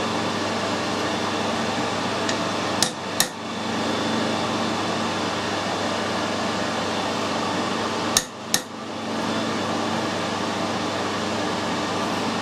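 Two pairs of sharp taps, the pairs about 3 and 8 seconds in, over a steady workshop hum. They are a copper-faced mallet knocking a workpiece held in a lathe's four-jaw chuck, nudging the high point in while the work is clocked true with a dial indicator.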